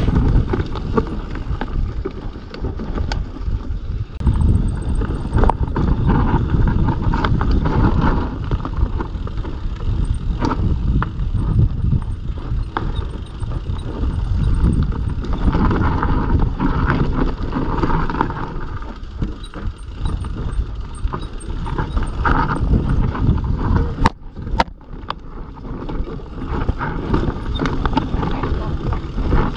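Mountain bike ridden along a rough dirt trail: tyres running over dirt and stones, with frequent knocks and rattles from the bike over bumps, and wind buffeting the microphone.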